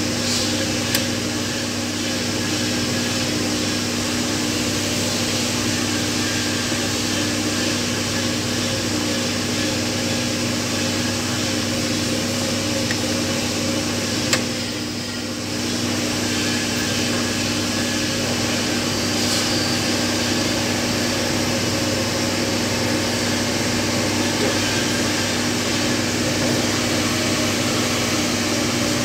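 A steady machine hum with a constant low drone, broken by two short sharp clicks, one about a second in and one about halfway through.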